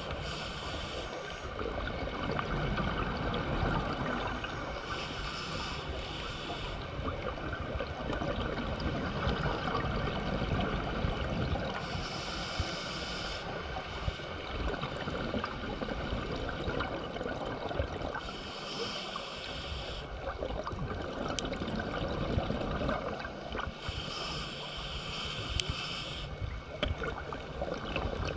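Scuba diver breathing underwater through a regulator: a hiss of inhalation about every six seconds, with the bubbling rush of exhaled air in between.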